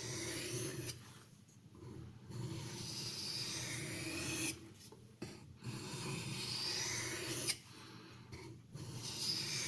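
A 440C steel knife blade drawn across a natural ROZSUTEC finishing whetstone in a series of scraping strokes, each a second or two long, with short pauses between them. These are light micro-bevelling passes made with only the weight of the knife.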